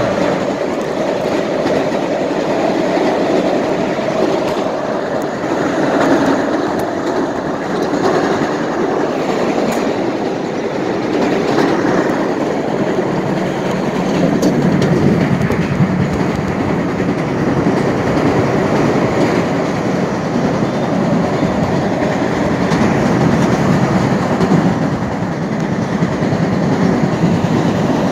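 Passenger train running along the line, heard from inside the car: the steady, even noise of the wheels on the rails.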